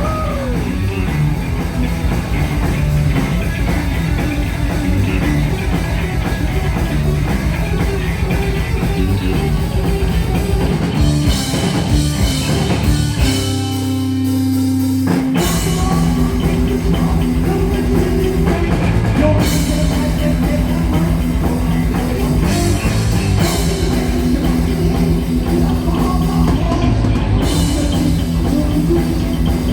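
Heavy metal band playing live: drum kit and distorted electric guitars at full volume. About halfway through, the drums stop for a couple of seconds, leaving a single held chord, and then the full band comes back in.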